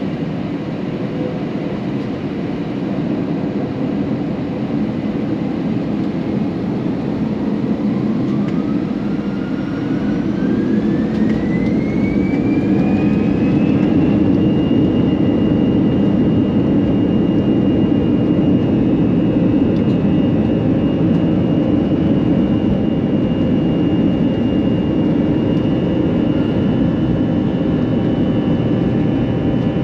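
Airbus A321-211's CFM56 turbofan engines heard inside the cabin, spooling up to takeoff thrust: a whine rises steadily in pitch for several seconds and then holds one steady note, over a continuous engine roar that grows louder as the whine climbs.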